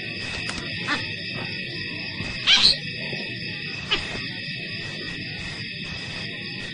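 A short, rising, high-pitched squeal, likely from a day-old baby baboon, about two and a half seconds in. It sits over a steady, high background chorus, with a couple of briefer sharp sounds around it.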